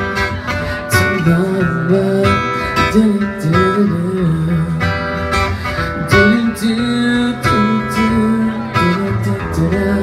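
Music: strummed acoustic guitar playing the instrumental close of a song, with a voice singing a wordless melody over it.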